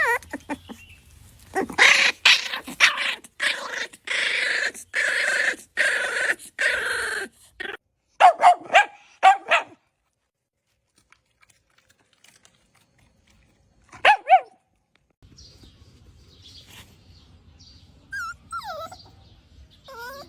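Puppy barking: a rapid run of short, harsh yaps, then a few short high yelps, and one more yelp a few seconds later.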